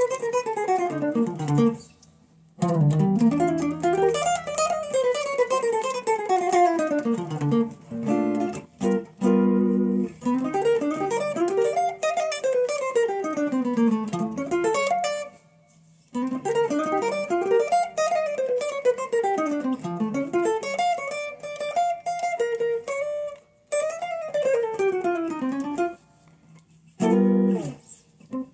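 Electric guitar strung with nines, its strings just raised to cure a buzzy sound, played in quick runs of single notes that climb and fall, with a few chords about eight to ten seconds in. The phrases are broken by short pauses.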